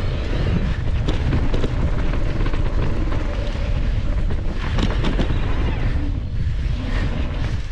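Wind buffeting the microphone and knobby tyres rolling over a dirt and gravel trail on a Cube Stereo Hybrid 160 electric mountain bike at riding speed, with a short run of knocks and rattles from bumps about five seconds in.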